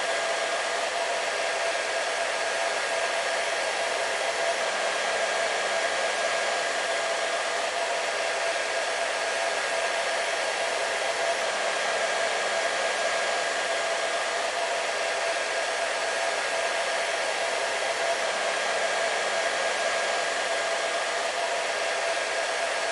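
Hair dryer running steadily without a break: an even rush of blown air with a steady motor hum at a fixed pitch.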